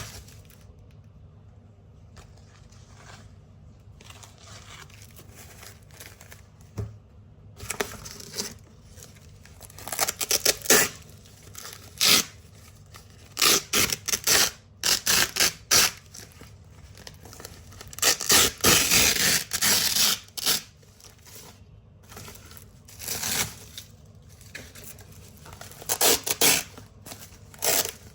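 Velcro hook-and-loop strips being ripped off a large black Velcro roll in a run of short, crunchy tearing rips. It is mostly quiet for the first several seconds, and the rips come thick from about a third of the way in, with the longest and loudest rip about two-thirds through.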